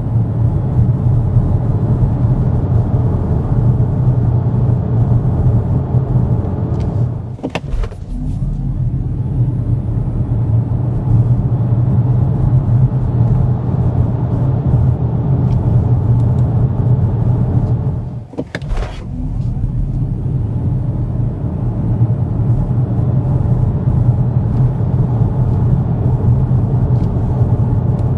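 Xpeng G6 Performance driving, a steady low road and tyre rumble with no engine note. It drops away briefly twice, about a third of the way in and again about two thirds in, each time with a short click.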